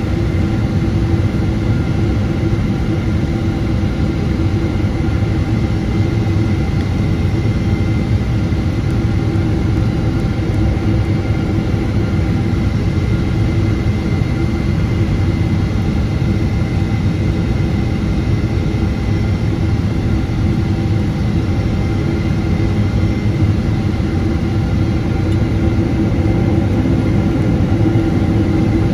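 Cabin noise of a Boeing 777-200ER on final approach: its GE90-92B turbofan and the rushing airflow over the wing make a steady deep rumble with a few constant whining tones above it.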